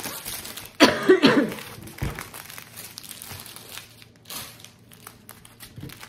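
Clear plastic packaging crinkling as it is handled and unwrapped. A short, loud vocal sound from the person comes about a second in, and a dull thump follows at about two seconds.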